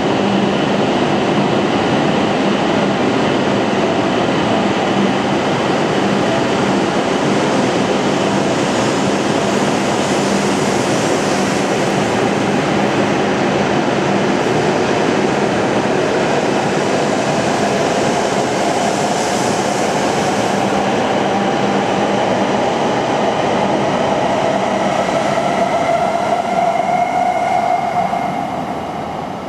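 Hokuriku Shinkansen train running through the station with a loud, steady rush of rolling and air noise. Faint motor tones rise slightly in the second half, and the sound fades in the last couple of seconds.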